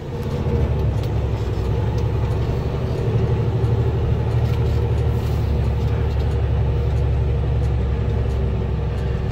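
Semi truck's diesel engine running, heard from inside the cab as a steady low rumble while the truck rolls slowly.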